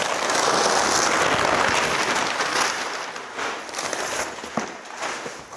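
Packaging crinkling and rustling as the kit's parts are unwrapped and handled. It is loud for the first few seconds, then dies down to a few light knocks.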